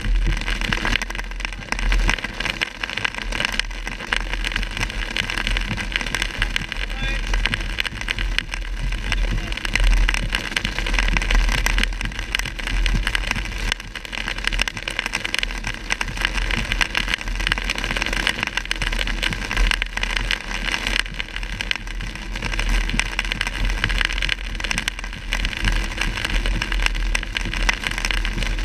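Inside a moving car in heavy rain: rain pelting the roof and windshield over steady tyre and road noise, with a low rumble underneath.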